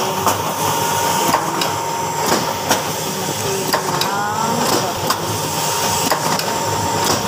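Automatic soap-wrapping machine running steadily, with a thin steady whine and sharp mechanical clicks and knocks at uneven intervals. There is a brief squeak about four seconds in.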